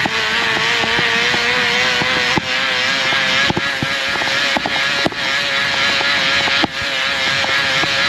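Plastic bottle rattling against a moving bicycle's spokes, giving a steady motorcycle-like buzz whose pitch wavers slightly with wheel speed, over rushing wind and scattered clicks.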